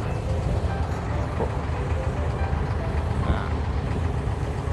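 Diesel engine of a wooden abra water taxi idling at the dock with a steady low rumble.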